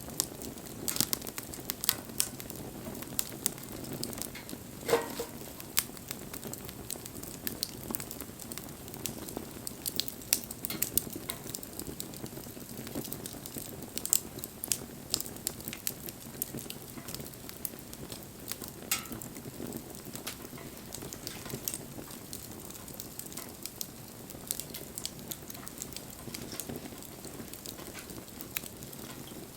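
Wood campfire crackling, with irregular sharp pops and snaps over a low, steady rush of burning. About five seconds in there is a brief falling whistle.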